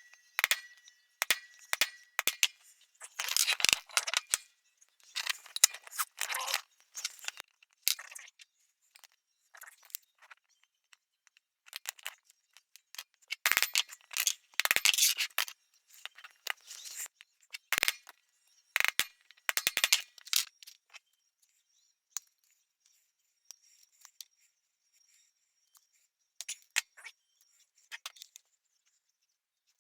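Irregular clicks, taps and short clatters of a small metal knife and hand tools being handled and set in place on a workbench, in a few bursts with quiet between.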